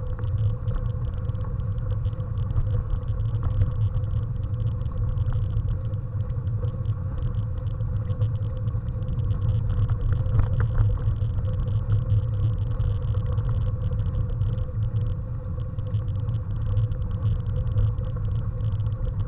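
Steady rumble of a bicycle rolling along a packed-dirt path, picked up by a camera mounted on the bike.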